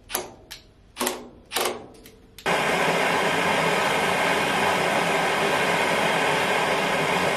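Handheld gas torch hissing steadily as its flame heats a stuck screw in a jointer's cutterhead to free it. The hiss starts abruptly about two and a half seconds in, after a few short, sharp sounds.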